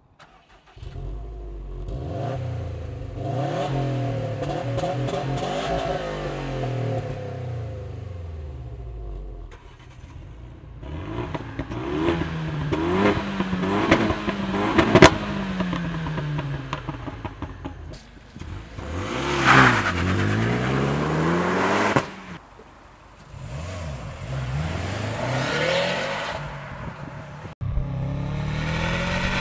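Exhausts of a Subaru WRX STI (turbocharged flat-four) and a Renault Mégane RS 275 Trophy (turbocharged four-cylinder) revved at standstill in a series of blips that rise and fall, with a sharp crack about halfway through. Near the end it switches to the Subaru's exhaust while the car is driving.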